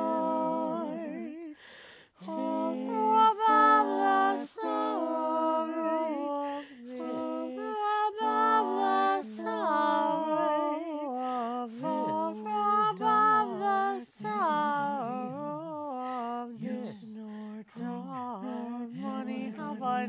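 A woman singing Elizabethan rounds a cappella, slowly, with a wavering vibrato. Several overdubbed parts of her own voice overlap as a round, with a brief break about two seconds in.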